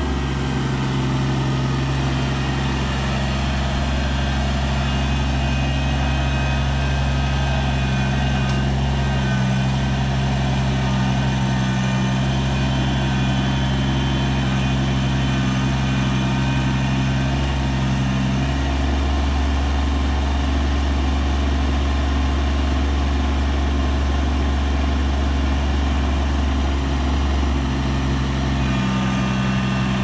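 Kubota BX23S compact tractor's three-cylinder diesel engine running as the tractor works in mud; the engine note deepens about two-thirds of the way in and comes back up near the end.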